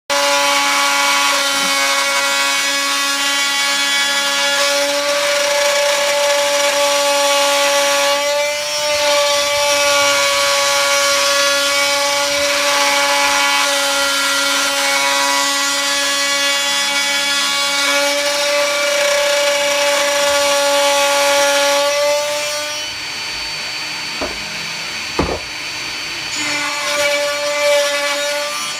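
Desktop CNC router (3020 type) milling a wooden floorboard: the spindle whines at a steady pitch over the rasp of the bit cutting wood. For a few seconds near the end the sound drops and thins out, with a couple of short knocks, then the full cutting sound comes back.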